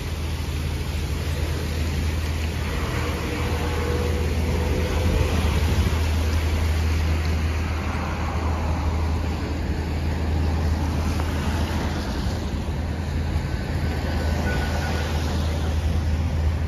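Street traffic on a wet road: cars passing with tyre hiss, swelling twice, over a steady low hum.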